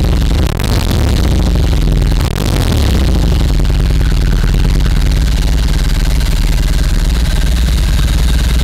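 BMW R18 First Edition's 1800 cc boxer twin running through its stock fishtail exhaust: revved in the first few seconds, then settling to a steady idle.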